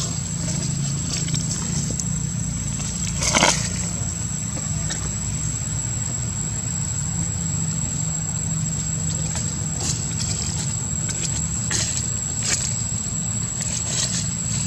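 Outdoor ambience: a steady low rumble with a thin, steady high-pitched whine over it, broken by a short crackle about three and a half seconds in and a few faint clicks near the end.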